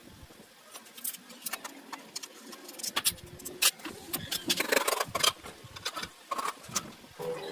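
Irregular sharp clicks and light knocks, a dozen or more, busiest in the middle of the stretch: tools and small metal parts being handled during motorcycle repair work.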